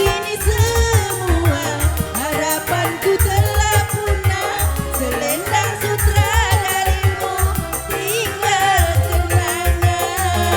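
Organ tunggal keyboard band playing dangdut-style music: a steady drum and bass beat under a wavering, ornamented melody line.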